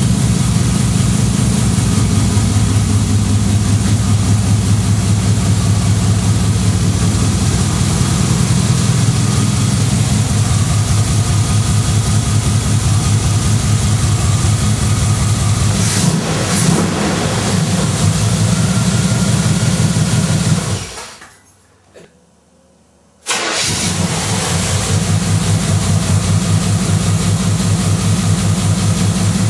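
Chevrolet 350 V8 idling through side exhaust pipes with a steady, loud, lumpy beat. About two-thirds of the way through the sound dies away to near quiet for about two seconds, then the idle comes back abruptly at full level.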